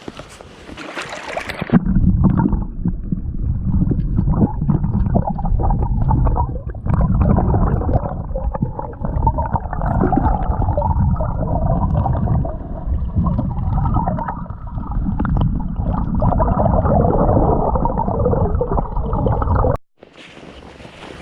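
Muffled water sloshing and gurgling, dull with no high end, starting abruptly about two seconds in and cutting off abruptly near the end.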